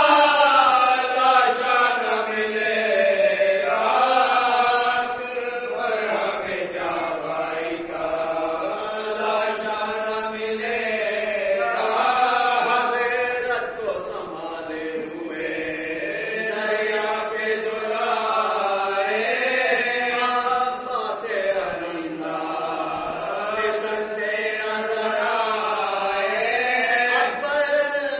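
A group of men chanting an Urdu marsiya (elegy) together without instruments, in long, drawn-out melodic lines that rise and fall.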